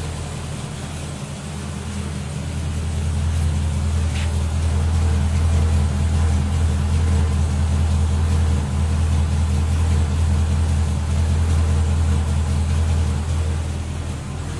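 2012 Chevrolet Corvette C6 Grand Sport's 6.2-litre LS3 V8 idling steadily at an even pitch, louder through the middle stretch.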